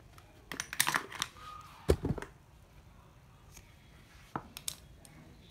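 Handling noise of fishing reels being set down and picked up: scattered clicks and rustles, with one sharp knock about two seconds in.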